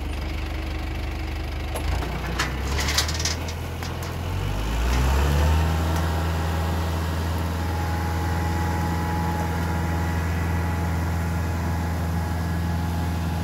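Farm tractor engine idling, with a few sharp metallic clanks about two to three seconds in. About five seconds in the engine revs up, then runs steadily at the higher speed as the tractor pulls away dragging a chained log.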